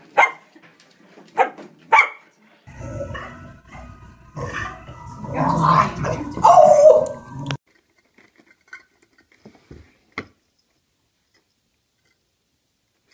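A dog gives three short, sharp barks in the first two seconds. It is followed by a few seconds of rough growling as two bulldogs wrestle over a toy, and then it goes almost quiet apart from a few small clicks.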